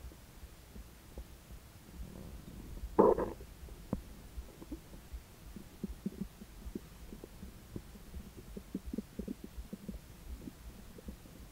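Human stomach and intestines gurgling while digesting a steak meal: a low rumble throughout, one loud gurgle about three seconds in, then a run of short quick pops.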